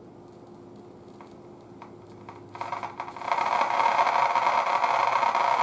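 Spiegel AirCastle tube radio's loudspeaker coming alive with a loud, steady hiss of static about two and a half seconds in, as the powered-up set begins to play; before that, only a faint hum and a few light clicks.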